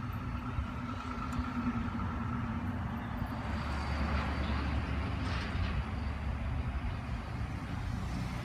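A motor vehicle running, a steady low engine hum with a swell of engine and road noise from about three seconds in, as of a vehicle passing, easing off near the end.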